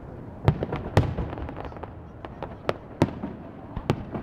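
Aerial fireworks shells bursting in an irregular run of sharp bangs, about half a dozen loud reports with fainter ones between, each trailing an echoing rumble.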